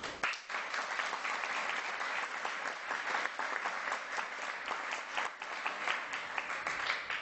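An audience applauding: many hands clapping in a dense, even spread that begins just after the start and holds steady.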